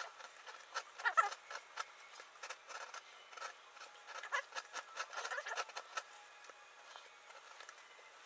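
Hand carving tool cutting and scraping 15-pound high-density urethane foam board, short strokes in irregular clusters as chips are cut away.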